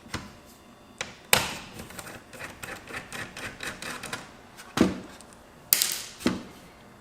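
Clicks, taps and knocks of a laptop's plastic and metal parts being handled during a teardown. The sharpest knocks come a little after a second in, near five seconds and near six seconds, with a run of small ticks in between.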